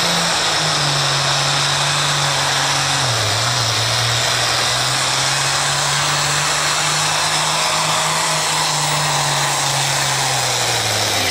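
International pulling tractor's turbocharged diesel engine running wide open under full load as it drags the weight-transfer sled. Its pitch sags slightly about three seconds in and falls away near the end as the pull winds down.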